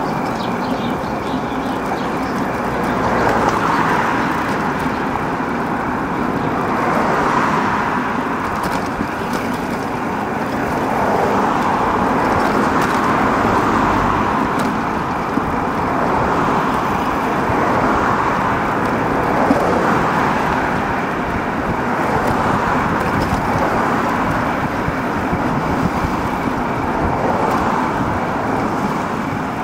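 City road traffic: vehicles passing one after another, the noise swelling and fading every few seconds, with a faint steady high tone underneath.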